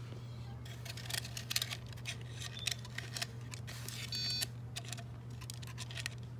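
Clicks and knocks of hands handling the plastic battery box and wire connector of a home-made Predator plasma cannon prop, over a steady low hum. About four seconds in, the prop's speaker gives a brief electronic beeping tone.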